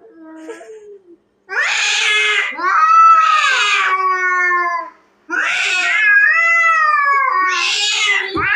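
Cats yowling at each other in a fight standoff: long, wavering caterwauls that rise and fall in pitch, with harsh rough bursts at the start of each call. The calls begin about a second and a half in and break off briefly about five seconds in.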